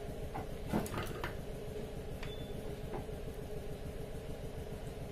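A few light clicks and taps from handling wires and leads on a workbench, in the first three seconds, over a steady low hum.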